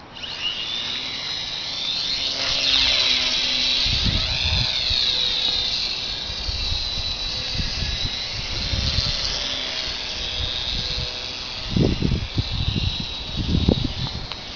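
Radio-controlled P-51 Mustang model plane's motor and propeller whining high in flight, the pitch sweeping up and down as the plane passes back and forth. Bursts of low rumble come about four seconds in and twice near the end.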